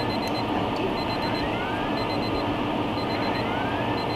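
Edited-in alarm sound effect: a group of four quick high beeps and a rising whoop, repeating about once a second over a steady hiss.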